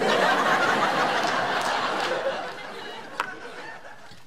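Audience laughing. It is loudest at the start and fades away over about three seconds.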